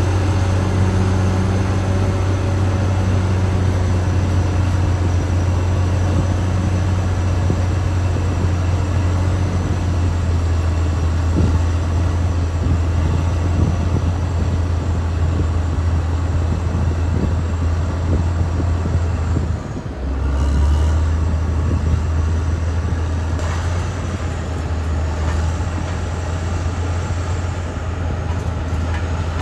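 Caterpillar D6R XL bulldozer's diesel engine running steadily with a deep drone, dipping briefly about twenty seconds in and then settling on a slightly different note.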